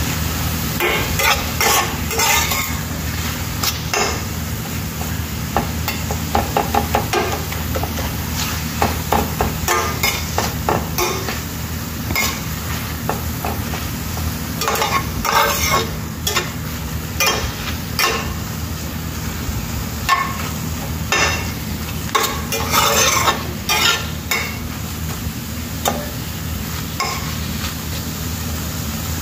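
Spatula scraping and knocking against a stainless steel frying pan as sautéed spinach with peppers and spring onions is stirred and turned, in irregular strokes over a light sizzle of frying.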